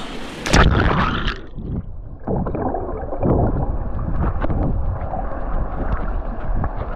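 A splash as the camera goes into the swimming pool about half a second in. Then muffled underwater bubbling and churning, heard through the submerged microphone.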